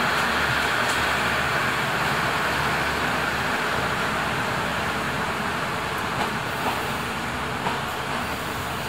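Moving passenger train: a steady rushing noise of wheels on rails that gets gradually a little quieter, with a few light clicks near the end.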